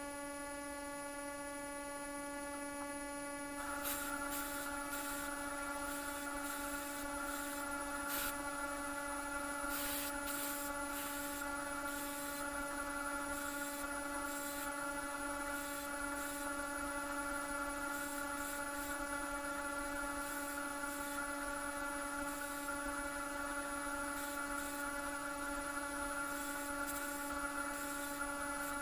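A power drill's electric motor runs with a steady hum. About four seconds in, the bit starts cutting into steel plate, adding a hiss and scattered scratchy bursts that continue.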